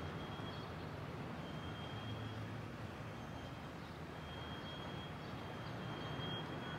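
Quiet outdoor ambience: a steady low rumble of distant traffic, with a faint thin high tone that comes and goes several times.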